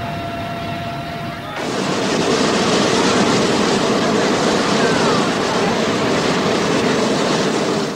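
A jet aircraft's steady turbine whine for about a second and a half. Then comes a sudden change to a hot-air balloon's propane burners firing with a loud, steady rush that lasts to the end.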